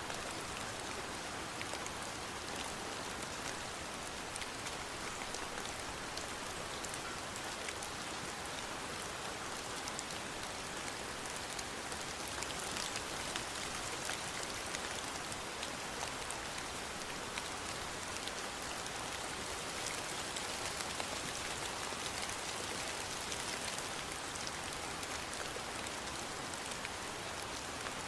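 Steady rain falling, with a dense patter of drops striking a surface. It holds an even level throughout, without thunder or gaps.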